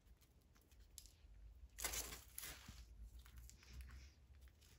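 Soft bread slider rolls with a cheesesteak filling being torn apart by hand, faint rustling and tearing, loudest about two seconds in.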